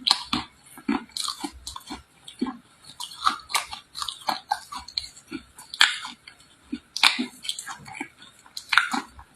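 A person biting and chewing dry red clay close to the microphone: an irregular run of sharp crunches and crackles, several a second, mixed with chewing mouth sounds.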